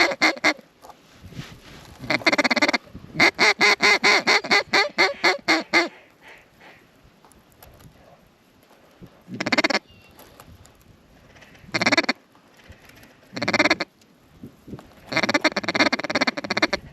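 Loud duck quacking. A fast run of a dozen or so quacks comes a few seconds in, single quacks follow at intervals, and another rapid run of quacks comes near the end.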